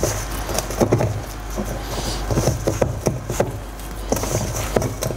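Hands kneading and squeezing potato gnocchi dough in a stainless steel bowl, making irregular soft knocks and squishes as the dough is pressed against the metal, over a steady low hum.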